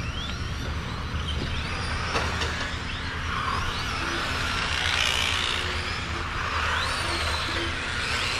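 Electric radio-controlled euro race trucks running laps, their motors and gears whining in pitches that rise and fall as they speed up and brake through the turns.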